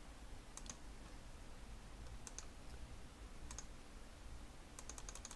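Faint clicks of a computer mouse: three single clicks spread out, then a quick run of about six clicks near the end, as vote buttons are clicked in turn.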